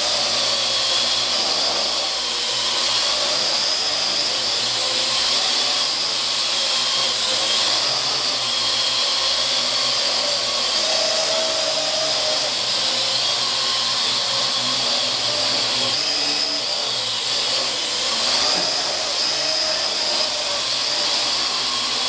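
Parrot AR.Drone quadcopter hovering, its four motors and propellers giving a steady whine whose pitch wavers slightly as the drone shifts position.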